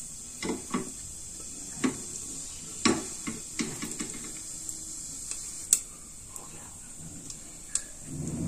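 Cumin seeds crackling in hot desi ghee in an aluminium pressure cooker: about a dozen sharp, irregular pops as the seeds temper.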